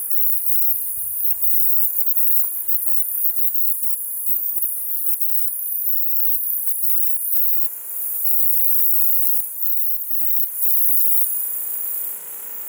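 Northern hump-winged grig singing: a loud, very high-pitched continuous trill, broken by a few short pauses in the second half.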